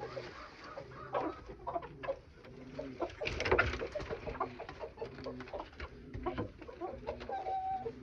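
Domestic pigeons cooing over and over in low repeated phrases, with hens clucking among them. There is a louder rustling clatter about three and a half seconds in and a short higher call near the end.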